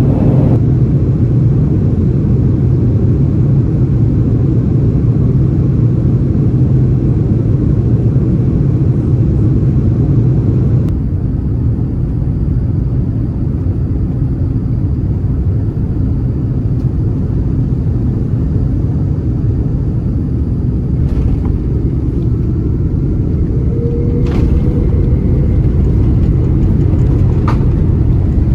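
Steady low rumble of an Airbus A330 cabin, engine and airflow noise, loud throughout. About eleven seconds in the upper hiss drops away abruptly and it goes slightly quieter, with a few faint clicks near the end.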